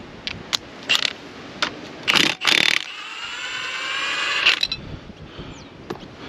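Cordless impact wrench undoing a flywheel bolt: a few clicks as the socket goes on, then a short loud hammering as the bolt breaks loose, then a rising whine as the bolt spins out, cutting off suddenly.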